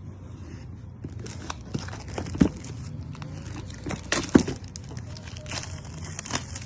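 Phone retail packaging being handled and opened: crinkling plastic, cardboard rustles and sharp clicks, with two louder knocks about two and a half and four and a half seconds in.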